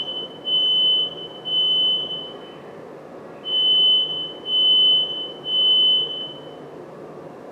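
Smoke alarm going off in the temporal-three evacuation pattern: a high-pitched beep about half a second long, repeated in groups of three with a longer pause between groups, set off by aerosol smoke-detector test spray. It stops about six seconds in.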